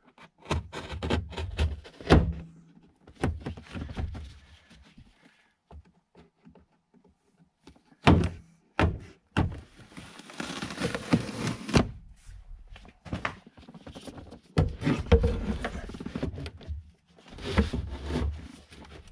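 Knocks, thumps and rustling of hands working in a truck's rear cab: sound-deadening insulation is pulled off the back wall, with a longer rustling tear about ten seconds in. A tube subwoofer is then pushed and thumped into the space behind the seat near the end.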